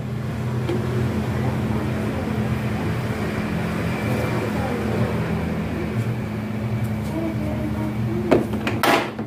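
Hard plastic panels of a knock-down Tabitha plastic cabinet being fitted into place by hand, with a few sharp plastic clacks near the end, over a steady low hum.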